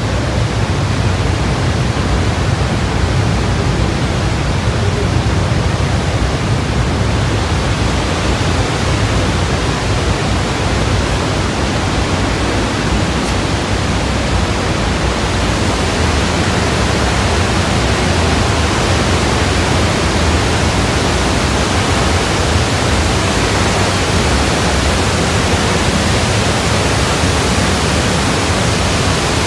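Roar of the Horseshoe Falls heard from the rock tunnel behind it: a loud, steady rush of falling water with a deep rumble underneath. The hiss grows brighter about halfway through.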